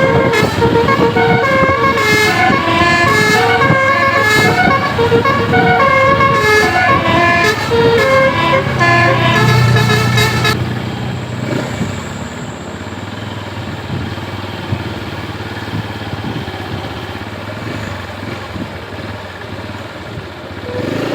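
Tour bus's Basuri telolet musical air horn playing a quick melody of short stepping notes, which cuts off suddenly about ten seconds in. The bus engine and road noise run on after it.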